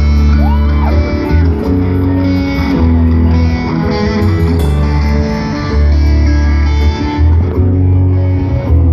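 Loud amplified rock music: electric guitar chords over a heavy bass line, the chords changing every second or so, starting right after a count-in.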